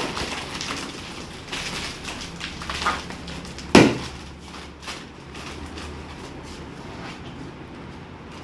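Foil chip packet crinkling as it is handled and opened, with one loud sharp snap a little under four seconds in, then quieter rustling as chips are taken out.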